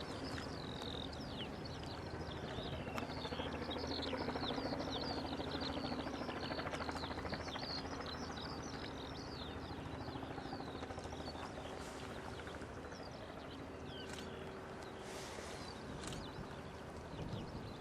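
Many small birds chirping and twittering over a steady low hum.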